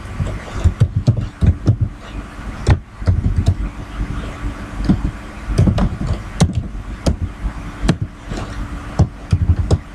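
Typing on a computer keyboard: irregular key clicks over a low rumble.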